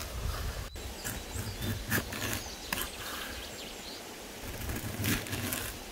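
Kitchen knife slicing through a firm quince and knocking on a wooden stump cutting board, a handful of separate cuts.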